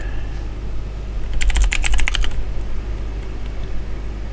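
Computer keyboard keys typed in a quick run of clicks, about a second and a half in, as a short shell command is entered, over a steady low hum.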